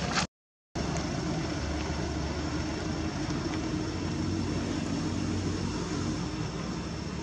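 Steady background rumble of a running motor vehicle engine, with a brief gap of complete silence about half a second in.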